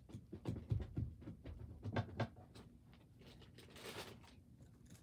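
Faint, irregular taps and soft knocks with some rustling: handling noise of things being moved about close to the microphone.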